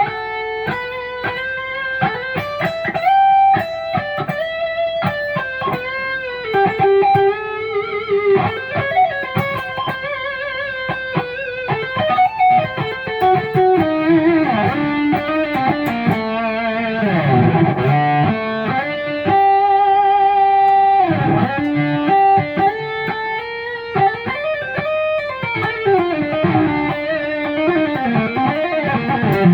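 Kiesel Crescent electric guitar with Kiesel Polarity active pickups playing a distorted single-note lead line through a Mesa Mark IV amp profile with added delay. The line is full of string bends and vibrato.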